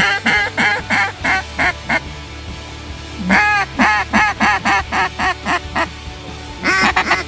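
Loud duck quacking in three rhythmic runs: about seven quacks, then about ten, then a third run starting near the end, each quack about a third of a second apart.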